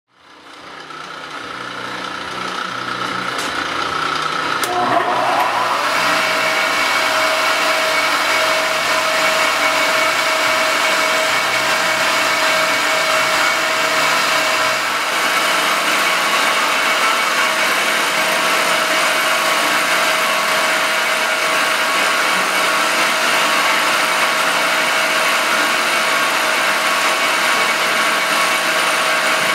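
Circa 1948 Gorton 8-1/2D milling machine running: a steady mechanical whine with a broad hiss. It fades in over the first few seconds and then holds steady.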